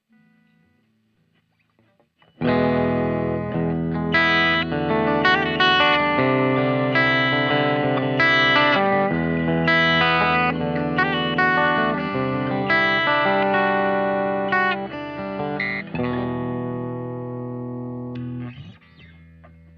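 Baum Backwing electric guitar played through an amp: chords strummed and left to ring, coming in loud a couple of seconds in and dying away near the end.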